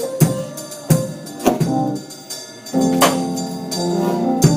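Live church band music: sustained keyboard chords punctuated by sharp drum and cymbal hits.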